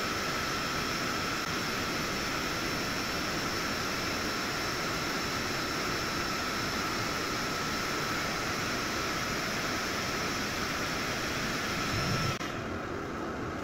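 xTool S1 laser cutter running: a steady mechanical whir with a high whine on top. About twelve seconds in, part of it cuts off suddenly and a quieter fan-like hum carries on.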